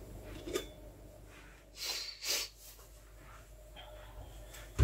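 A person's short breathy sniffs, two of them about two seconds in, over quiet kitchen room tone, with a single light click near the end.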